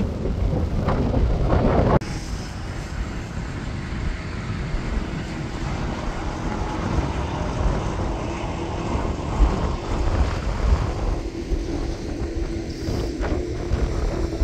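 Jet airliner engines rumbling as a Boeing 737 moves along the runway, heavily buffeted by wind on the microphone. The sound drops suddenly about two seconds in, and a faint steady whine comes in near the end.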